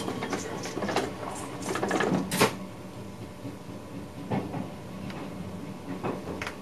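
Inside the cab of a VIRM double-deck electric train: a steady running hum with scattered clicks and knocks. The loudest knock comes about two and a half seconds in.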